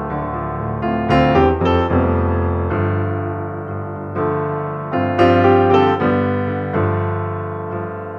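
Background piano music: slow sustained chords, with a few higher notes struck in quick groups about a second in and again about five seconds in.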